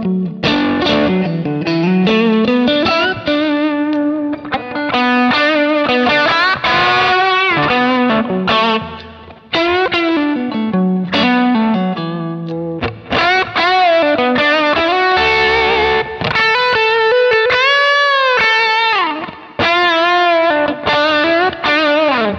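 Overdriven electric guitar lead from a Strat-style guitar played through a Kemper amp profile: single-note lines with bends and vibrato. The EQ has the deep lows, bass and fullness cut and low mids, high mids and treble added, so the tone is narrow, squawky and pokey, a lead voice meant to cut through a mix.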